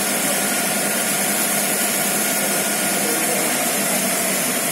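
Steady hiss of water spraying from a fire hose's revolving head branch, which throws a wide, misty spray, with a running engine, typical of a fire pump, underneath.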